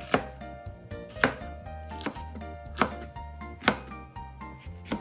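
A kitchen knife slicing a yellow bell pepper into strips on a plastic cutting board: a sharp knock as the blade meets the board roughly once a second, six strong strokes with lighter ones between, over soft background music.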